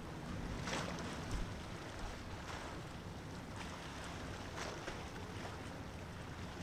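Small waves washing against the shore in short swishes every second or two, over a steady low hum.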